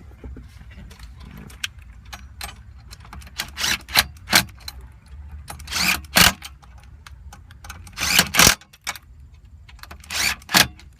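Hand tools working the screws of a steering column cover plate: irregular metallic clicks and short clattering bursts over a steady low hum, loudest around four, six and eight seconds in.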